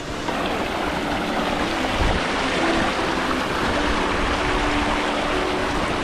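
Bamboo stalks creaking as they sway in the wind: faint, drawn-out low croaking tones that come and go over a steady rushing noise.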